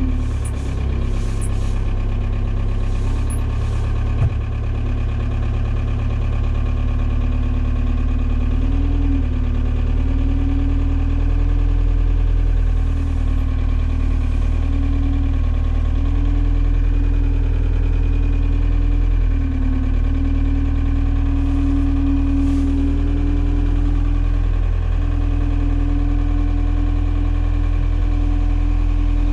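Forklift running as it drives with a loaded pallet: a steady low hum with a tone that rises and dips as it moves. One knock about four seconds in.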